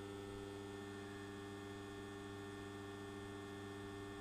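Isolation transformer humming steadily at mains frequency, a low even hum with several overtones, as it powers a bench test under load.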